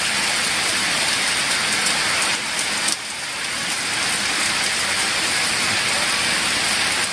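Heavy rain pouring steadily: a dense, even hiss of rain on stone paving and puddles.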